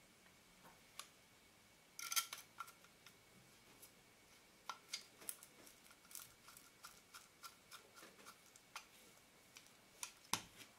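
Faint small clicks and light scraping of a small screwdriver and fingers handling an AF Nikkor 35mm f/2 lens barrel, with a cluster of clicks about two seconds in and a sharper click near the end.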